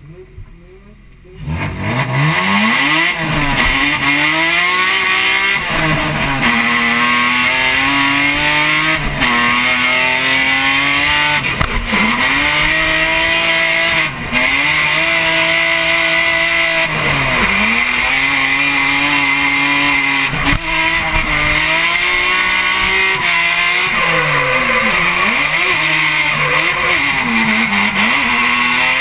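BMW S54 3.2-litre straight-six in an E36 drift car, heard from inside the cabin, revving hard and dropping back again and again through the run, with steady tyre squeal underneath. The first second or so is quiet before the engine comes in loud.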